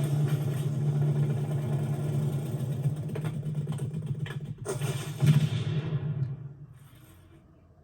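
Low, steady droning buzz of a large flying beetle's wings, with a few knocks and clatters about four to five seconds in, then dying away over the last second or two.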